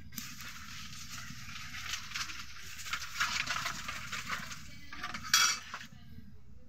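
A thin layer of oil sizzling and crackling as it heats in a karai (wok), a dense hiss full of fine ticks, with one sharper, louder spit about five seconds in; the sizzle stops about six seconds in.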